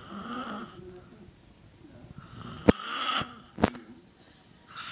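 A sleeping man snoring loudly. There is a short snore at the start, then a longer, louder snore a little past the middle, broken by two sharp clicks about a second apart.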